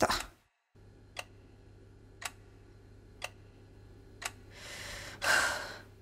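A clock ticking about once a second over a low steady hum, then a person's loud breath near the end.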